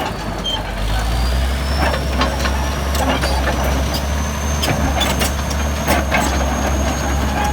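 Bulldozer's diesel engine running with a steady low drone, with repeated sharp clanks and clicks from the machine working, and a thin high whine that rises slightly over the first few seconds.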